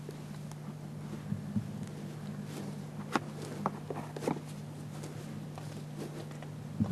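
Scattered soft clicks and knocks of a blind bow hanger being handled and fitted into the corner of a ground blind, over a steady low hum.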